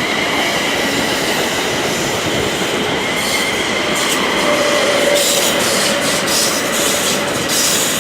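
A pair of Class 360 Desiro electric multiple units pulling into the platform: steady rolling noise with a high squeal from the wheels, and a run of rapid clicks over the rail joints in the second half.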